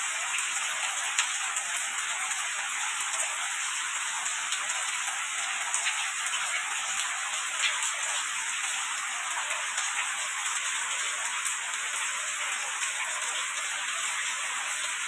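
Steady rain falling, an even hiss with many small drop ticks pattering through it.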